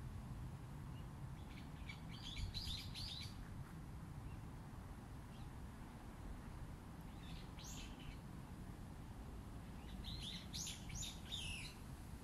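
Small bird chirping in three quick runs of short high notes, about two seconds in, near eight seconds, and near the end, over a faint steady low rumble.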